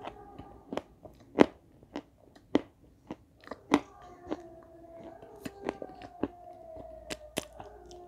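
Crunching and chewing a mouthful of white chalk coated in red clay slurry: sharp, irregular crunches, the loudest about a second and a half in and near four seconds in.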